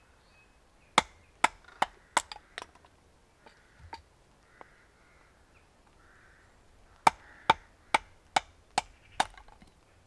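Batoning: a short wooden baton knocking on the spine of a knife to drive the blade down through a small upright stick and split it. Two runs of about six sharp knocks, two or three a second, one starting about a second in and the other about seven seconds in.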